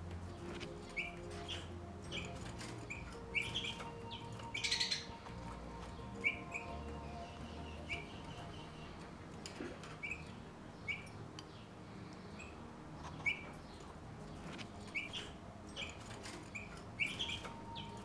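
Caged pet finches chirping: short high chirps at irregular intervals of about a second, with a longer, louder call about four and a half seconds in and another near the end.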